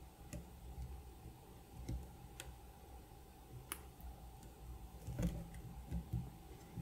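Faint, scattered ticks and clicks of a small flathead screwdriver tip working at the plastic cover tabs of an Omron D2FC-F-7N mouse microswitch, with a few duller handling knocks about five to six seconds in.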